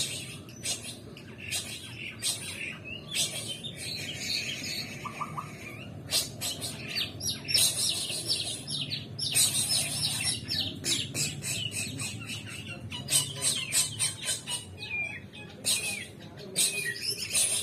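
White-rumped shama (murai batu) singing a long, varied song of sharp clipped notes and quick gliding whistles, delivered in bursts.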